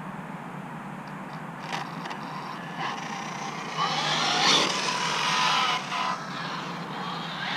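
Castle Creations Mamba Monster X brushless motor of a radio-controlled ARRMA Limitless car on a 4S battery, run without its sensor wire. From about four seconds in it gives a high whine that rises and falls in pitch as the car accelerates away and lets off.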